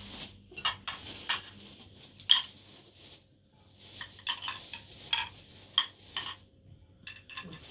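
Small china plates and spoons clinking as food is served out onto the plates: scattered sharp clinks, the loudest a little over two seconds in.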